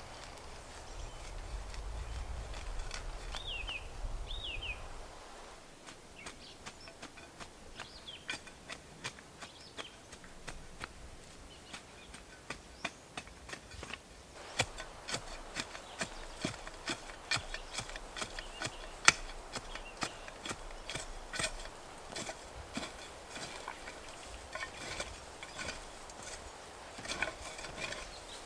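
Irregular sharp clicks and knocks, as of gear or wood being handled, growing busier about halfway through. Before them comes a low rumble with two short falling chirps, like a small bird, a few seconds in.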